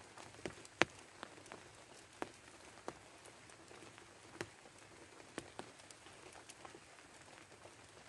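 Light rain: scattered drops ticking at irregular intervals, about one every half second to a second, over a faint steady hiss, with the sharpest tick about a second in.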